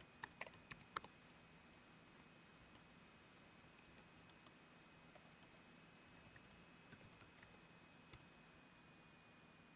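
Faint computer keyboard keystrokes: a command being typed in short, irregular runs of clicks with pauses between them.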